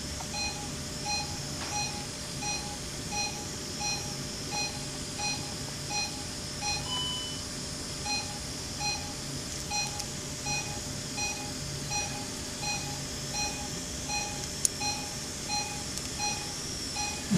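Operating-room patient monitor beeping with the patient's pulse: short beeps at one steady pitch, evenly spaced about 0.7 seconds apart (roughly 85 a minute), a steady regular heartbeat. A low steady hum of theatre equipment lies underneath, and one brief higher tone sounds about seven seconds in.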